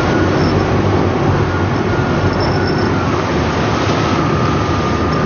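A boat's engine running steadily with a low hum, under the wash of rough sea and wind.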